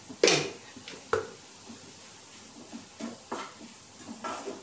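Wooden spatula knocking and scraping in a frying pan as thick onion-tomato masala is stirred: two sharp knocks within about the first second, the first the loudest, then softer scrapes and taps.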